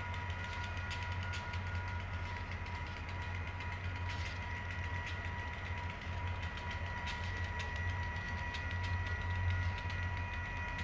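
VIA Rail passenger train approaching, with a steady low diesel rumble. A level-crossing bell rings on at a steady pitch.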